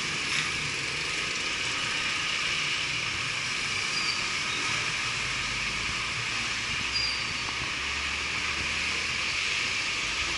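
Steady noise of road traffic passing along a busy street, with no single vehicle standing out.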